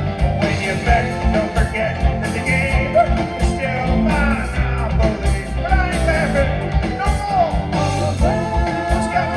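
Live rock band playing a song, with drums and bass driving underneath and a lead melody line that slides and bends in pitch above them.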